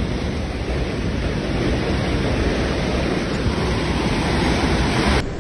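Floodwater rushing past in a steady, loud roar of noise, changing abruptly near the end.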